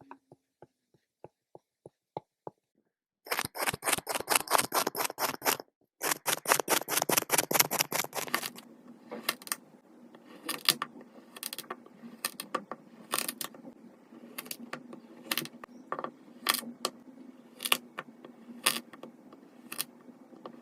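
Dense runs of rapid, sharp clicks, then scattered single clicks over a low steady hum.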